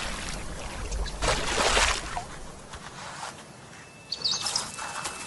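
Water splashing and sloshing in a small plastic paddling pool as a honey badger moves about in it, with the biggest splash about a second and a half in. A few short high chirps come near the end.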